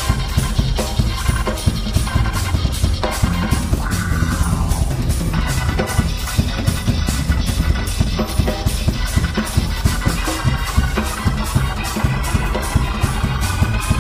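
Live jazz-fusion band playing loudly: a busy drum kit, bass and keyboards with guitar, and a line that slides down in pitch about four to five seconds in.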